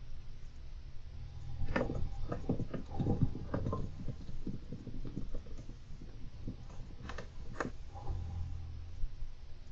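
Golden hamster scrabbling about its cage: irregular small clicks and scratches in busy patches, about two seconds in, again about seven seconds in, and near the end, over a low steady hum.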